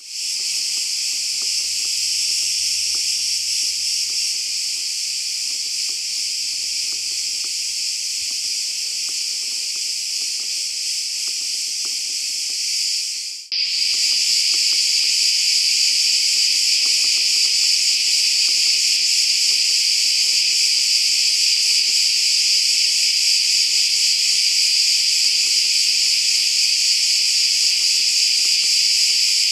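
Dense, steady chorus of cicadas, a continuous high-pitched buzz. It drops out briefly about halfway through and comes back louder.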